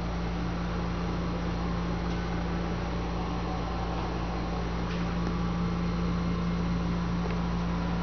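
Steady machine hum with a strong low steady tone from a JEOL JSM-6610 scanning electron microscope running, its pumps and electronics heard up close inside the instrument's cabinet.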